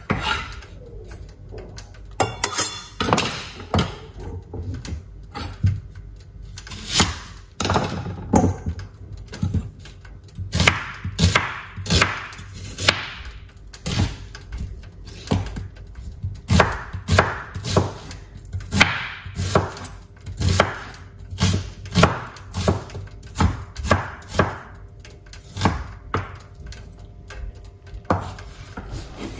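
Kitchen knife chopping vegetables on a wooden cutting board, irregular sharp strokes at roughly one or two a second.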